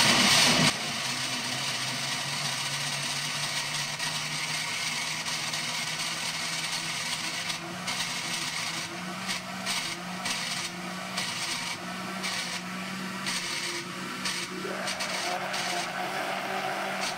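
Countertop blender's electric motor running steadily, churning milk, eggs and softened butter into a frothy liquid; it is louder for about the first second.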